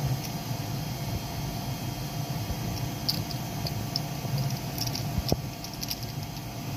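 Faint small clicks and creaks of a 3D-printed articulated flexi dinosaur's plastic segments being flexed by hand, a few about three seconds in and a cluster between four and six seconds, the sharpest a little past five seconds. Under them runs a steady low fan hum from the 3D printer.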